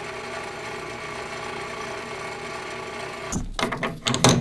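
Small metal lathe's motor and spindle running steadily, a whine made of several even tones. About three seconds in the running stops abruptly and gives way to loud knocks and handling clatter close to the mic.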